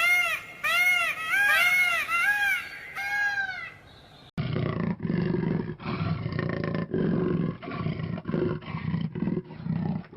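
Animal calls: a quick run of short, high cries that rise and fall in pitch, then, after an abrupt change, a series of low, rough growling calls, each up to about a second long.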